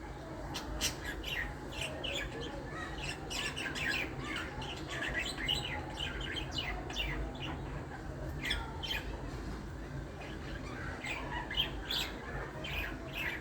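Several birds chirping, a steady stream of short, sharp, high calls, over a low steady rumble.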